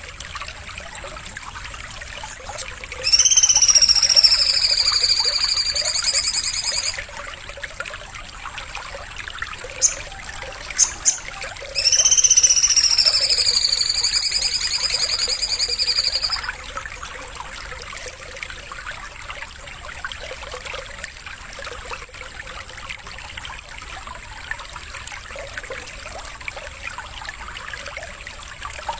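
A songbird singing two long, high, pitched song phrases of about four seconds each, several seconds apart, with a few short chirps between them, over a steady trickle of running water.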